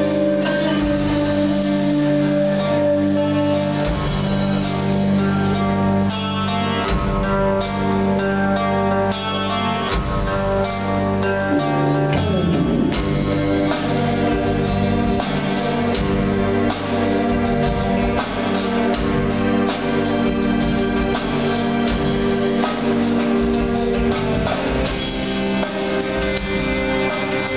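Live rock band playing loudly: long held organ-like keyboard chords over electric guitar, bass and drums.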